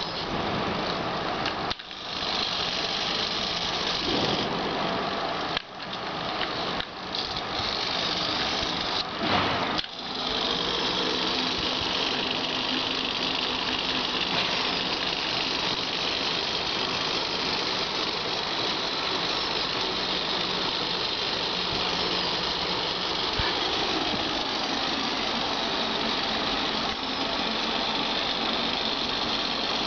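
Small geared servo motors (SG90 micro servos converted to continuous rotation) whirring as they drive a robot's wheels. The whirr breaks off and restarts several times in the first ten seconds, then runs steadily.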